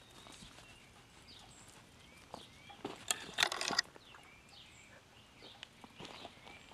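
Rustling and crunching of dry leaves, wood mulch and shrub twigs as a small puppy and the person following it move through a garden bed. The noise swells into a dense burst of crunching for about a second near the middle, with faint high chirps in the background.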